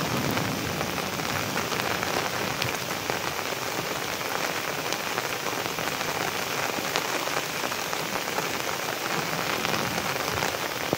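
Steady rain falling, a dense even hiss dotted with the ticks of individual drops striking a surface.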